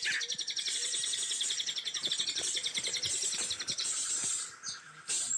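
Forest chorus of high, rapidly pulsing trills that fill the air. They drop out briefly about four and a half seconds in, then start again.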